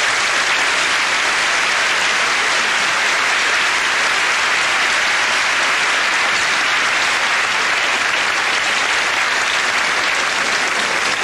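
Large audience applauding, a dense, steady clapping that keeps up evenly throughout.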